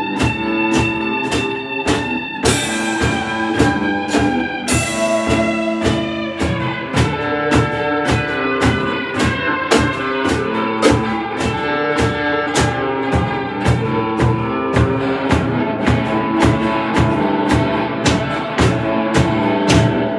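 A live band playing an instrumental in a Middle Eastern–Turkish folk style: two electric guitars over a steady drum-kit beat, with two cymbal crashes about two and a half and five seconds in.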